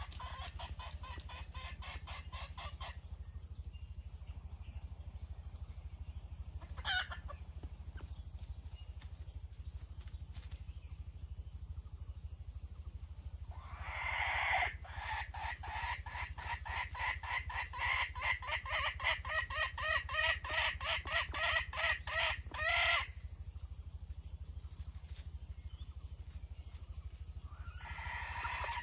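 Wild jungle chicken hen clucking in a quick run. About midway she gives a long series of loud, rhythmic cackling calls, about two a second, lasting around nine seconds.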